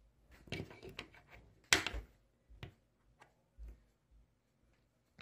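Scattered clicks and taps of metal coins being handled and set down on a hard tabletop. The sharpest click comes a little under two seconds in, and a dull thump follows later.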